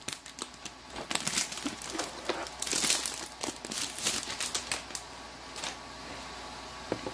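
Clear plastic wrapping being pulled off a laptop, crinkling and crackling in quick irregular bursts, dying down about five seconds in. A couple of light clicks follow near the end.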